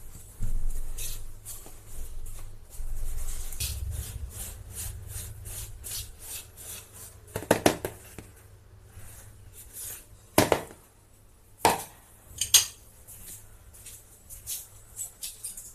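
Silicone spatula stirring dry milk powder and sugar in a plastic bowl: soft scraping and bumping of the bowl with light tapping. About halfway through come a few separate sharp knocks of utensil against bowl.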